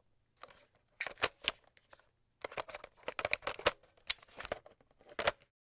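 A run of sharp, irregular light clicks and taps, several a second in uneven clusters, starting about a second in.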